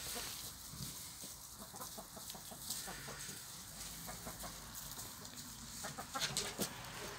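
Amrock chickens clucking in a run of short, soft notes, with a few sharp clicks about six seconds in.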